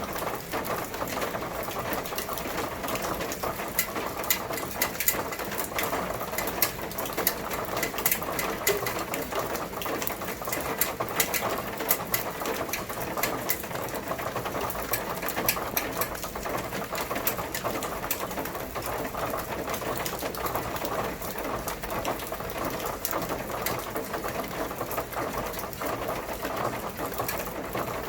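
Steady rain, its drops hitting a hard surface as dense, irregular sharp ticks over a constant hiss.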